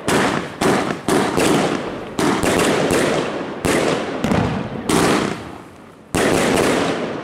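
Evolution Fireworks Euphoria 100-shot cake firing: a rapid series of about ten loud bangs in seven seconds, each trailing off before the next, with a short gap before a last bang near the end.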